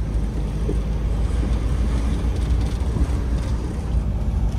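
Steady low engine and road rumble heard inside the cab of a 2015 medium-wheelbase Fiat Ducato van driving along a road.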